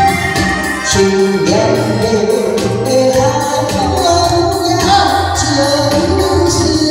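A woman singing a Taiwanese Hokkien song live over an amplified keyboard backing track, the voice coming in about a second in.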